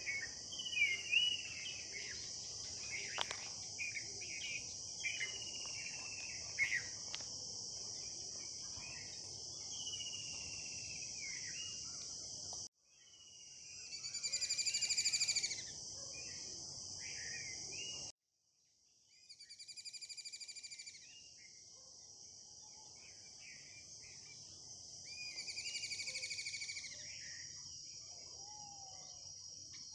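Outdoor nature ambience: a steady high-pitched insect chorus like crickets, with birds chirping and trilling over it. The whole background cuts off abruptly twice, about 13 and 18 seconds in, then comes back.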